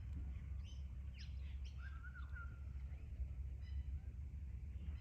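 Wild birds calling in short, scattered chirps, with one lower call about two seconds in, over a steady low rumble.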